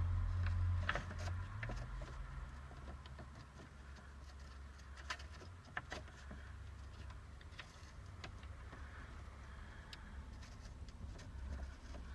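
Faint scattered small clicks and ticks of metal parts being handled as a lock nut is fitted onto a toggle switch, with a low rumble that fades over the first two seconds.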